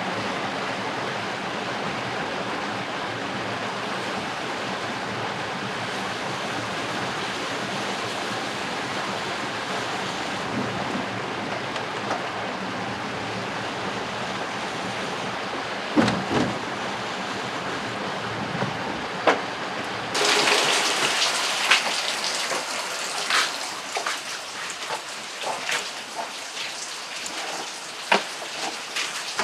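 Rain: a steady wash of noise for about twenty seconds, then an abrupt change to a brighter, closer patter of drops with scattered sharper taps.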